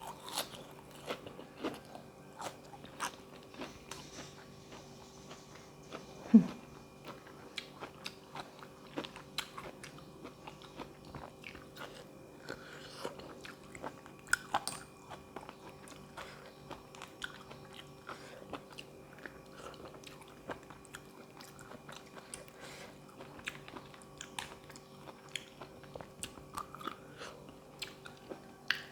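Close-up chewing and crunching while eating spicy seafood papaya salad with raw vegetables, with many small wet mouth clicks throughout. One short, louder low sound comes about six seconds in.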